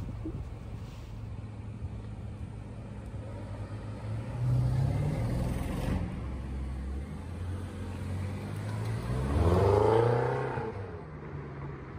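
Two twin-turbo V8 cars, an Audi RS6 Avant and a BMW M6 Gran Coupé, idling and then driving off one after the other. The first grows louder about four seconds in as it pulls away. The M6 accelerates off about ten seconds in, with an engine note that rises and then falls; this is the loudest moment.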